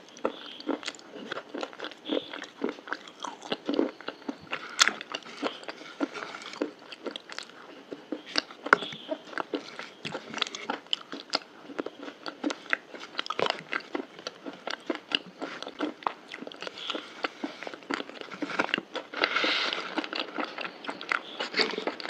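A person biting and chewing crunchy food close to the microphone: a continuous run of crisp crunches, thickening into a louder stretch about twenty seconds in.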